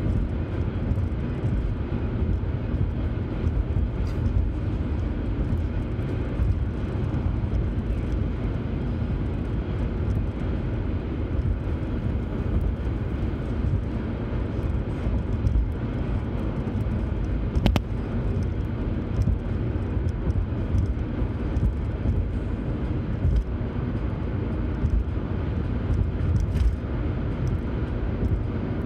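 Steady low rumble of a car at highway speed heard from inside the cabin: tyre and engine noise. A single brief click comes about two-thirds of the way through.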